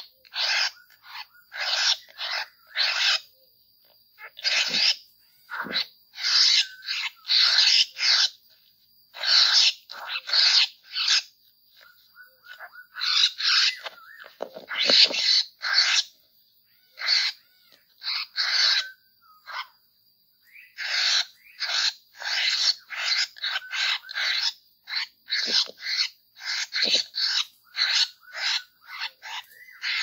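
Poksay (laughingthrushes) giving harsh, rasping chattering calls, several a second in quick runs with short pauses between, over a thin steady high whine.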